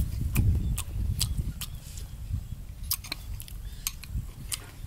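A person chewing a mouthful of raw salmon close to the microphone: a run of wet mouth clicks and smacks, about two or three a second at first.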